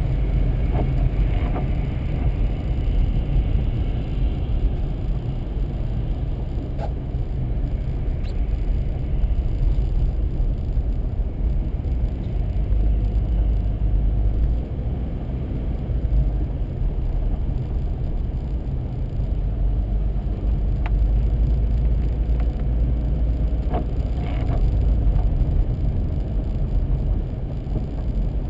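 Steady low rumble of a vehicle's engine and tyres heard from inside the cabin while driving slowly on a snow-covered highway, with a couple of faint clicks.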